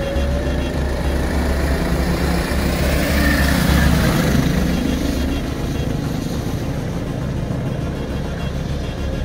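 Go-kart engines running on track, with two karts passing close by about three to four seconds in, their note rising and falling as they go by, over a steady low rumble.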